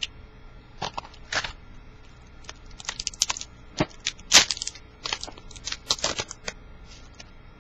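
Trading card pack wrapper being torn open and the cards handled: scattered crackles and sharp clicks of foil and card.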